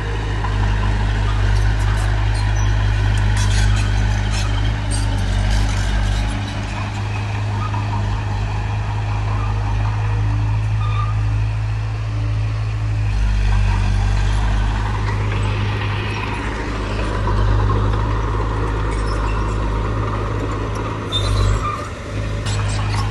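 Heavy diesel engine of earthmoving machinery running steadily under load, with a few sharp metallic clanks.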